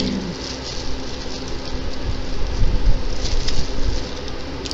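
Plastic bag rustling as hands handle cold-porcelain clay and plastic measuring spoons, with a few dull bumps against the work surface about two to four seconds in, over a steady low hum.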